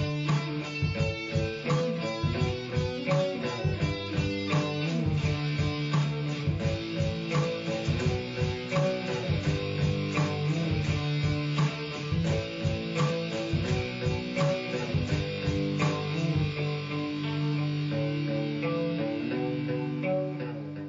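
Electric guitar played through an amplifier, a busy run of picked notes and chords; in the last few seconds a chord is held and rings on, starting to fade at the end.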